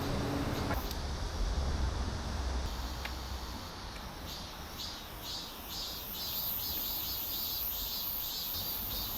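Insects chirping outdoors in a rhythmic pulsing pattern, about two to three pulses a second, starting about four seconds in, with a steady very high buzz joining it. A low wind rumble on the microphone fills the first few seconds.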